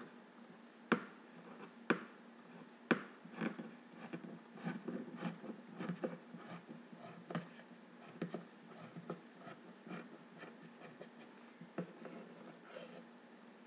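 Scissors cutting through T-shirt fabric: a run of irregular snips and blade clicks with the fabric rustling and scraping against the table, with three sharper clicks about one, two and three seconds in.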